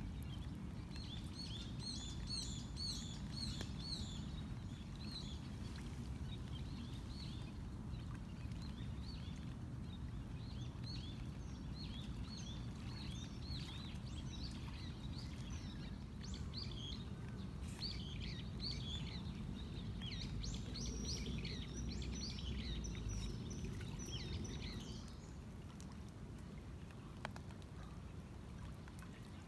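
Small birds chirping, many short high chirps in quick runs, over a steady low outdoor rumble. Near the end the chirping stops and the background becomes quieter.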